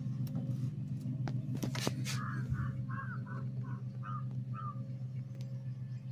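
A bird calling: a quick series of about six short calls starting about two seconds in, over a steady low hum, with a few sharp clicks just before the calls.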